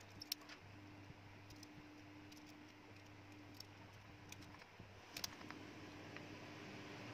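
Near silence over a low steady hum, broken by a few faint clicks and taps as a utility knife and small wooden blocks are handled and paper is scraped off the wood. The sharpest clicks come just after the start and again about five seconds in.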